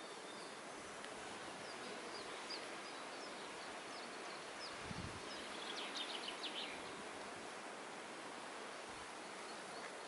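Outdoor ambience: a steady even hiss with short bird chirps scattered through it, a quick run of them about six seconds in, and a dull low thump just before that run.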